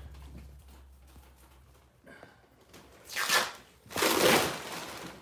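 Rustling and rubbing handling noise from a phone being moved on its mount, in two short bursts about three and four seconds in.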